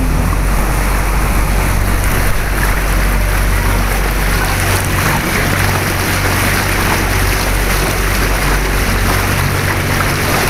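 Open canal tour boat under way: its motor runs at a steady low hum under a steady wash of water and rushing noise.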